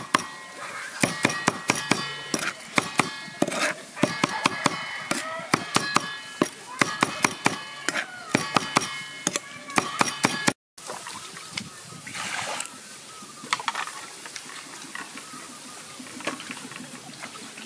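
Heavy cleaver chopping fish paste on a wooden chopping board, rapid strokes several times a second, each a sharp knock with a slight metallic ring. About ten seconds in the chopping stops and gives way to a quieter background with a few short chicken calls.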